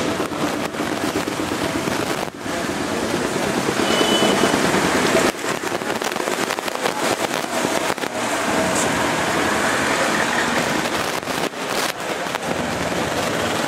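Heavy rain falling steadily, a dense even hiss that drops out briefly a few times.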